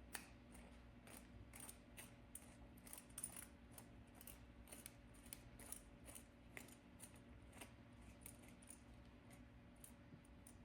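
Faint, irregular small clicks and ticks, a few a second, from a threaded part of a syringe self-filling device being screwed by hand.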